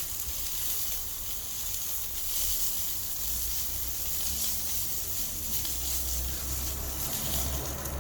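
Rib roast steak sizzling in an iron frying pan over a wood fire: a steady high hiss, with a low rumble underneath from about three seconds in.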